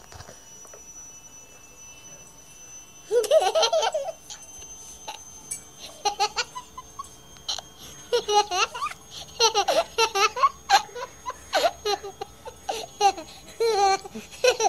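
A baby laughing: a short burst of laughter about three seconds in, then a longer run of repeated giggles from about eight seconds in.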